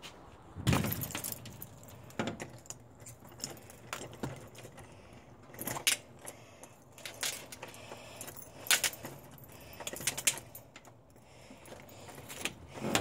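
A ring of keys jangling and clinking in irregular bursts as a key is fitted and turned in a doorknob lock, with a low thump about a second in.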